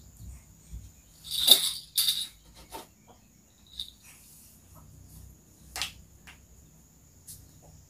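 Steady high insect drone, with two short loud noises about a second and a half in and a few faint clicks after.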